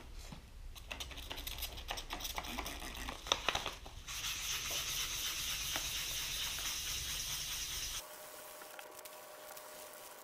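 Hand sanding with an abrasive pad, first on a wooden tomahawk handle, then on the steel axe head: scratchy rubbing strokes with a sharp tap about three seconds in, a steadier hiss for a few seconds, then it drops quieter about eight seconds in.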